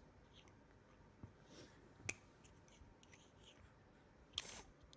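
Near silence in a small room, broken by a few faint clicks, a sharper tick about two seconds in, and a brief breathy noise near the end.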